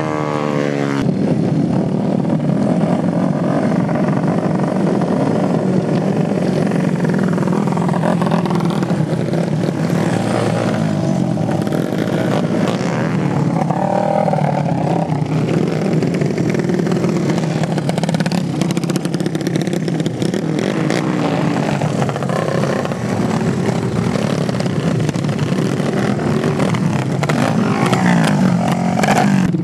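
Racing kart engines running at high revs as karts pass, their pitch rising and falling with the throttle and with each kart going by.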